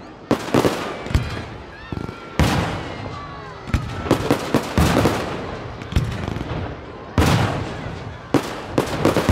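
Aerial fireworks going off in a fast, irregular barrage: a dozen or more sharp bangs with echoing tails, bunching into a quick run of cracks about four seconds in and again near the end.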